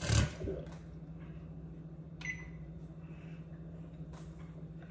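A fork testing a baked pound cake in its dish: a thump right at the start, then one short clink with a brief ring about two seconds in, over a steady low kitchen hum.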